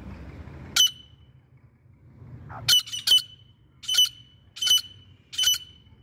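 Grey francolin calling: short, sharp, high-pitched notes. There is one note about a second in, then after a pause five more, the first two close together and the rest under a second apart.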